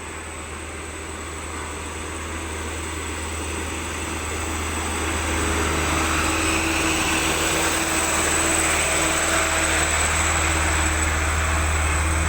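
A bus approaching along the road, its engine rumble and road noise building up and growing louder about five seconds in, with a steady engine hum.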